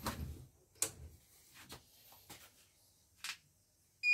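Scattered clicks and light knocks from a hand working at the side of a CNY portable embroidery machine, switching it on. At the very end the machine's start-up beep begins, a loud, steady, high tone.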